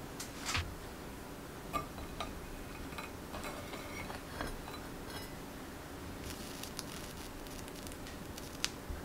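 Quiet kitchen handling sounds from a metal spatula and a ceramic plate: a dull knock about half a second in, scattered light clicks and scrapes, and one sharp click near the end.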